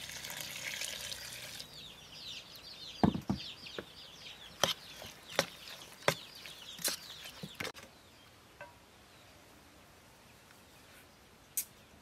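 Broth poured from a jug onto chopped herbs in a stainless steel bowl, then a metal spoon stirring the mixture and clinking against the bowl about eight times before it goes quiet.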